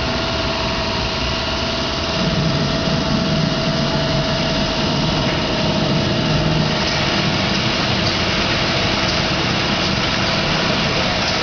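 Automatic eye-drop filling machine running: a steady, continuous mechanical hum with a constant mid-pitched whine running through it.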